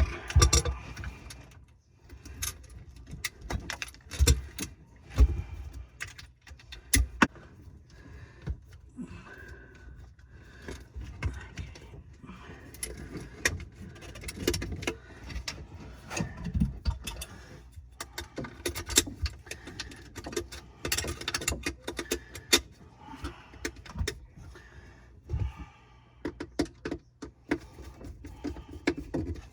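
Irregular clinks, clatters and knocks of tools and parts being handled and fitted during a garbage disposal installation under a kitchen sink.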